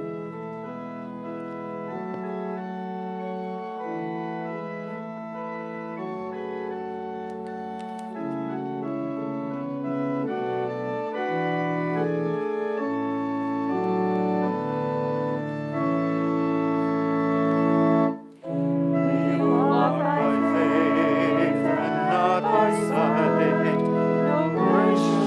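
Church organ playing slow, sustained chords. About eighteen seconds in it breaks off for a moment, then resumes louder and fuller.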